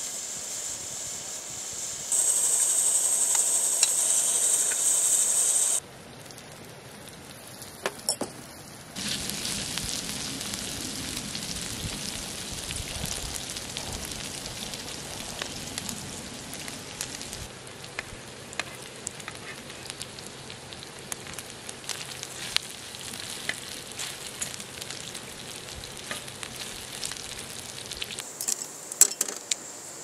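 Pieces of meat frying on a hot griddle pan, sizzling with scattered pops and crackles. The sizzle is loudest for a few seconds near the start, drops away briefly, then comes back steady with crackling from about nine seconds in.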